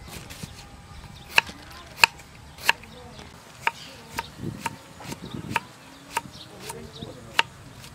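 Kitchen knife slicing roots on a thick wooden chopping block. Each stroke ends in a sharp knock of the blade on the wood. There are about a dozen knocks, roughly two a second, with a short rustle of handling a little past the middle.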